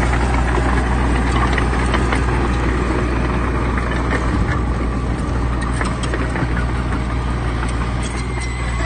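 Heavy construction machine's diesel engine running steadily, a constant low engine drone.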